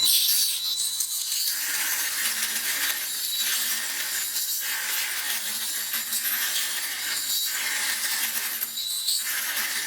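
Homemade 2x72 belt sander driven by an e-bike motor, grinding a workpiece held against the belt. The gritty grinding noise eases off briefly about every second or so as the work is pressed on in repeated passes.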